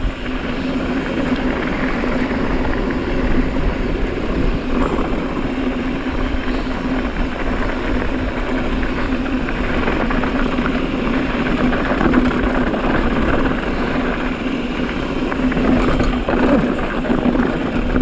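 Wind buffeting the microphone of a mountain biker riding a dirt fire road, mixed with the steady rolling noise of the bike, with a constant low hum running under it.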